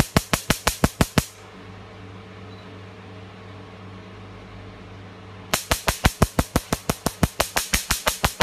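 Scar-removal laser firing a rapid train of sharp snapping pulses, about five a second, likened to an M16. The pulses stop about a second in, leaving the machine's steady hum, and start again about five and a half seconds in.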